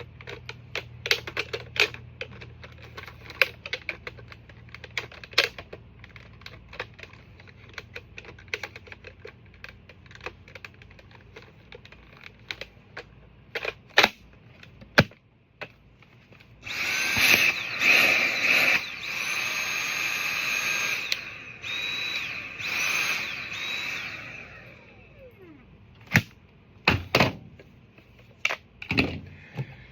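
Small battery-powered electric motor whirring in several short stop-start runs for about eight seconds, after a long stretch of light clicking and clattering from parts being handled; a few sharp knocks come near the end.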